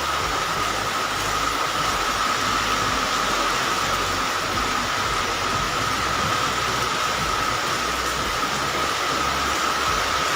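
Heavy tropical downpour: a steady, even rush of hard rain, with a steady high whine running underneath.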